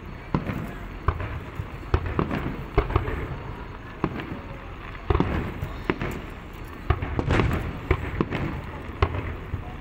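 Aerial fireworks bursting: about a dozen sharp bangs at irregular intervals, with a low rumble between them.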